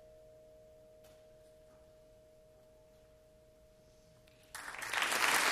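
A concert band's soft final chord is held and slowly fades, then cuts off about four and a half seconds in as audience applause breaks out and swells.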